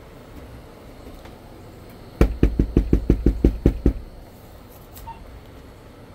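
Someone knocking hard on a door, a quick run of about ten knocks in under two seconds, starting about two seconds in.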